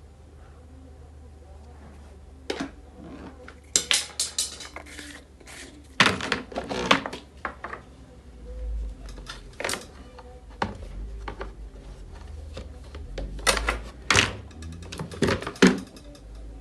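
Irregular clicks, knocks and light clatter of hard parts and tools being handled, with a low steady hum underneath.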